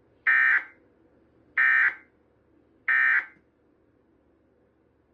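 Emergency Alert System end-of-message signal: three short, identical buzzy bursts of SAME digital data tones, about 1.3 seconds apart. They mark the close of the alert, telling receiving equipment that the test message is over.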